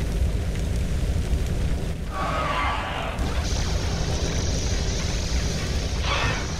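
Cartoon sound effect of a flaming meteor falling: a steady deep rumble, with a noisy burst about two seconds in and a higher rushing hiss joining about a second later.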